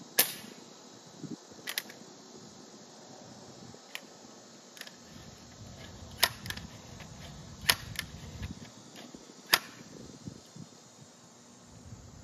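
Spring-piston break-barrel air rifle, a Crosman Legacy 1000, fires once with a sharp crack just after the start, with a couple of lighter clicks about a second and a half later. Then come a run of metallic clicks and clacks as the barrel is broken open, cocked, loaded and snapped shut, the loudest about two-thirds of the way in.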